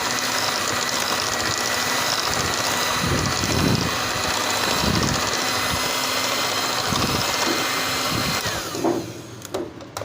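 Electric mixer running steadily, beating flour into cake batter, with a high whine from its motor and a few dull knocks in the middle; it is switched off near the end.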